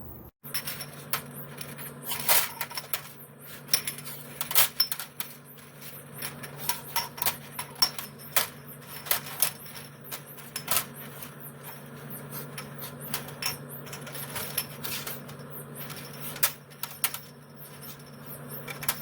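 Hot glass canning jars clinking and knocking against each other and the counter as they are turned upright and set out, many sharp clinks at uneven intervals, with a low steady hum underneath.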